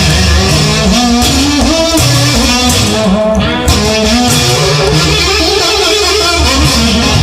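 Guitar-led rock music with no vocals: a lead guitar line over a steady bass.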